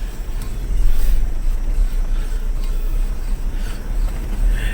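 Vehicle driving over a bumpy dirt road, its engine and running gear giving a steady low rumble.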